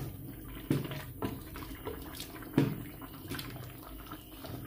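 Wooden spoon stirring a thick, oily red pepper paste (ajvar) in a large pot as it cooks down: wet squelching and sloshing, broken by several sharp knocks of the spoon against the pot, the loudest about two and a half seconds in.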